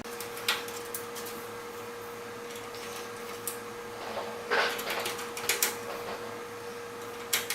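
Small screws being turned out of a computer case's metal plate: scattered light clicks and scrapes, busiest in the middle, over a steady faint hum.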